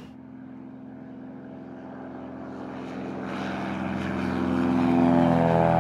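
Single-engine piston tow plane with its propeller running at takeoff power as it climbs out towing a glider. It is a steady, even-pitched engine drone that grows steadily louder as the plane comes nearer.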